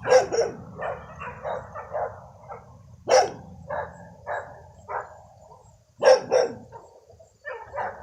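A dog barking repeatedly, with loud barks at the start, about three seconds in and a quick pair about six seconds in, and fainter barks in between.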